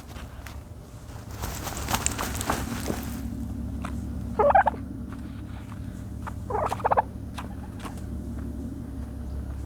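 Turkey dust-bathing: a scratchy rustle of dirt being scratched and flicked for a couple of seconds, then two short pulsed calls about two seconds apart.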